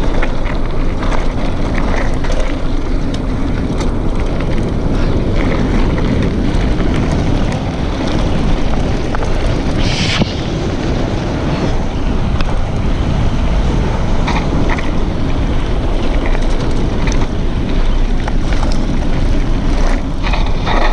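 Mountain bike rolling fast down a dirt and gravel trail: tyre crunch and frequent rattles and knocks from the bike over bumps, under heavy wind noise on the microphone. A brief hiss about ten seconds in.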